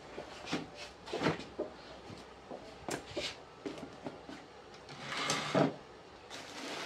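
Handling sounds as a hen's nest is moved and set in place: scattered light knocks and clicks, with a longer rustle about five seconds in.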